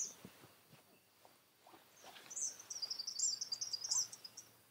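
A bird calling outdoors at dusk: a short high chirp at the start, then a quick run of high chirps for about two seconds from around the middle. Faint small rustles and ticks from the hammock underneath.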